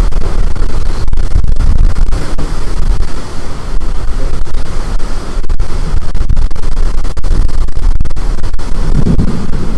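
Strong storm wind buffeting the microphone: a loud, rumbling rush that rises and falls in gusts.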